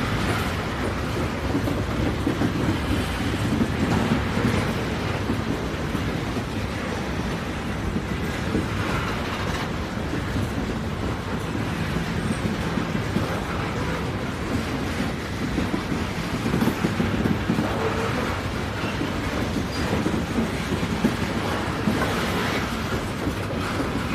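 Steady rumble and rolling noise of a moving train.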